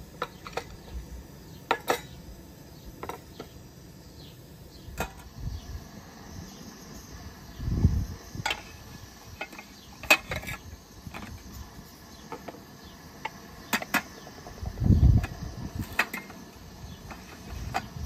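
Metal plates, plastic bowls and small clay cups clinking and tapping as they are set down one by one on a low wooden table, with two dull thumps in between.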